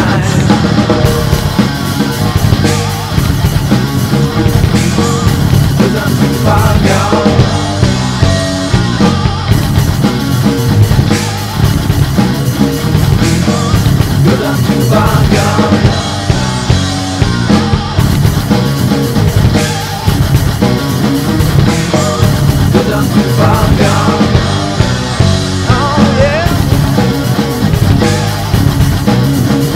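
Metal song playing loud and without a break: electric guitar over a full drum kit.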